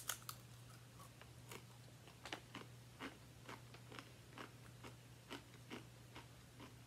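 Faint crunching of a rippled Calbee pizza potato chip being bitten and chewed: a string of small crisp crunches, about two a second.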